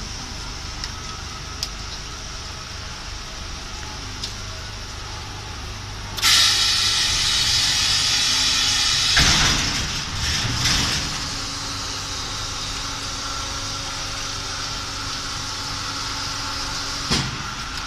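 Hydraulic hot plate welding machine for PP toilet seats running its cycle. It starts with a low steady hum and a few light clicks. About six seconds in comes a sudden loud hiss lasting about three seconds, then a couple of clunks as the tooling moves, then a steadier hum with a faint whine, and a short knock near the end.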